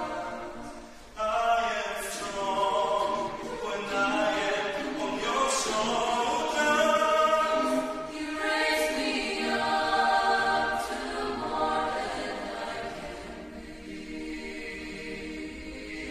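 Mixed chamber vocal ensemble of men's and women's voices singing a cappella in harmony, coming in fuller just over a second in and growing softer toward the end.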